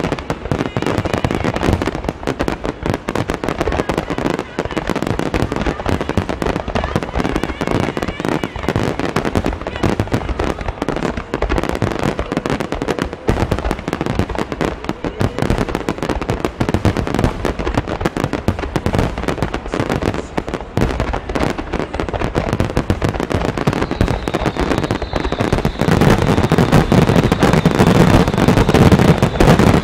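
A dense, continuous barrage of aerial firework shells bursting one over another in a wide starmine finale. It grows louder and deeper about 26 seconds in.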